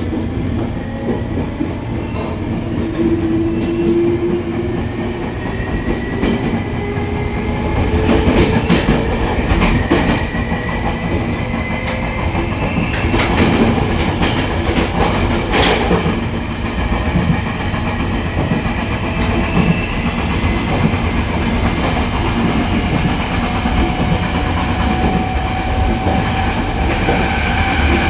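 E500 electric locomotive's Toshiba IGBT traction inverter whining as the push-pull Tze-Chiang express accelerates from about 30 toward 90 km/h. Its several tones rise slowly in pitch over steady wheel-on-rail running noise with clicks from the track, heard from inside a passenger car. The train runs on out-of-round steel wheels.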